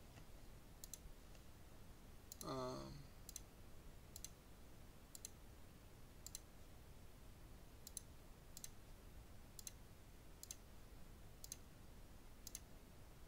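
Computer mouse clicking: a dozen or so faint, sharp clicks at uneven spacing, roughly one a second, as wires are placed in a circuit schematic. A voice makes a brief murmur about two and a half seconds in.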